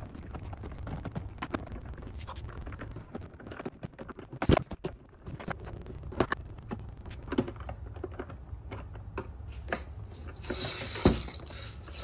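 A hand screwdriver driving screws into the plastic standoffs of a LeapFrog learning table's plastic base: a run of small clicks and scratchy ticks, with a few sharper knocks of the plastic housing, the loudest about four and a half seconds in. Near the end there is a scrape and a knock as the plastic toy is shifted and lifted.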